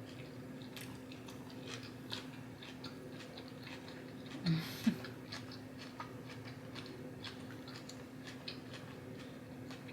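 Close-mic chewing of chicken Caesar salad: scattered soft crunches and wet mouth clicks, with a brief louder mouth noise about four and a half seconds in. A faint steady low hum lies underneath.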